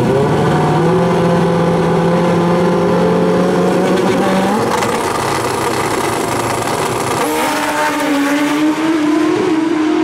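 Two Pro Street drag motorcycles on the start line, their engines held at revs while staged. About seven seconds in the engine note changes sharply as they launch, then climbs steadily as they pull away.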